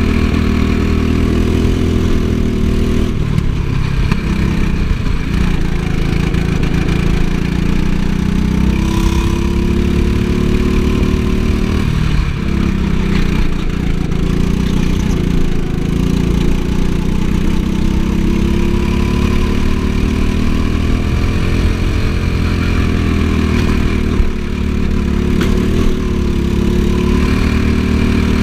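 Go-kart engine running hard on track, its note rising as it accelerates and dipping briefly three times (about three seconds in, near the middle, and near the end) as the kart slows for corners, with steady wind and road noise underneath.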